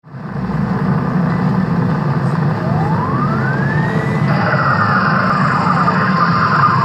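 Intro sound effect: a loud rumbling noise with one siren-like tone that rises for about a second and a half, then falls away over the next two.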